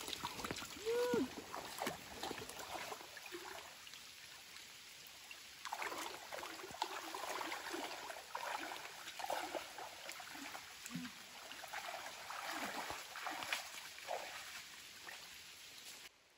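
Water splashing and trickling as a hiker wades through a shallow river ford, in irregular bursts of splashes that grow busier partway through. A short voiced sound comes about a second in.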